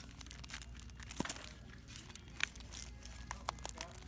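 Scattered crinkling, rustling and clicking handling noises over a steady low hum.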